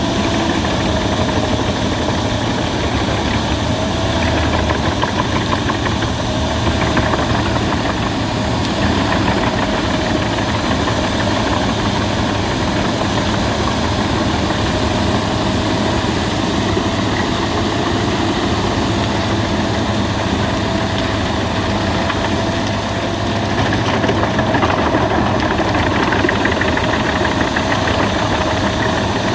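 Albach Diamant 2000 wood chipper running steadily while chipping branches: a loud continuous engine and machine drone with a wavering tone.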